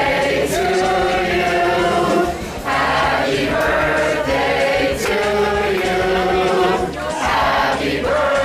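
A crowd of people singing together in unison, in held phrases of about two seconds with brief breaks between them.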